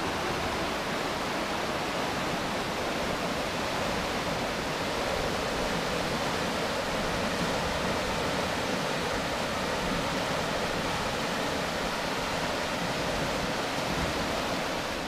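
Steady rush of Big Spring's outflow tumbling over rocks in whitewater rapids.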